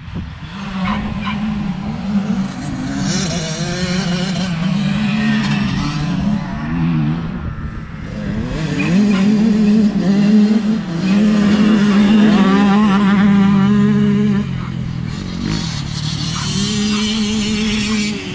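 Quad bike engines running: one holds a steady note while revs rise and fall several times, loudest in the middle.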